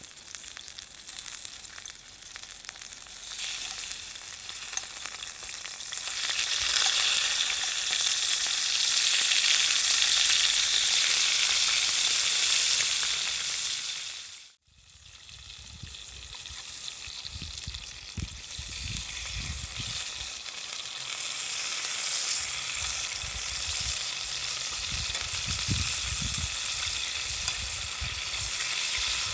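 Food frying in a hot pan, a dense sizzle that swells over the first several seconds. It cuts off abruptly about halfway through, then the sizzling resumes with intermittent low thuds.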